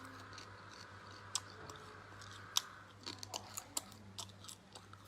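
Faint, crisp crunching of fried insect larvae being chewed close to the microphone: a few scattered crunches, then a quicker run of them in the second half.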